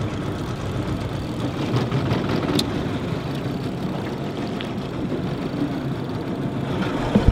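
Small boat's outboard motor running steadily as the boat moves out over the water.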